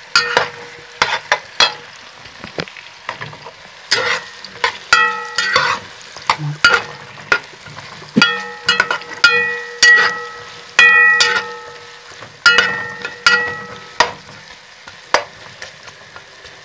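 Diced carrots sizzling in hot oil in a kazan while a spoon stirs them, scraping and knocking against the pot. Many of the knocks ring briefly with a metallic tone.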